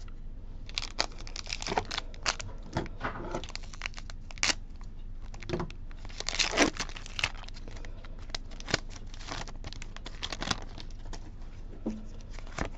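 Foil Pokémon booster-pack wrapper crinkling and tearing open by hand: a run of sharp crackles, densest and loudest about six to seven seconds in.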